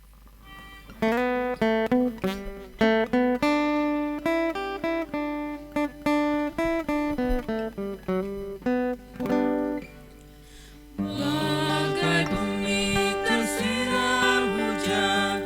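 Acoustic guitar picking a melody note by note as an introduction; about eleven seconds in, singing of a hymn begins over the guitar.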